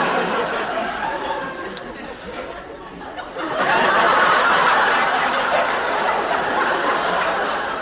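Studio audience laughing: the laughter eases off, then swells up again about three and a half seconds in and slowly tapers.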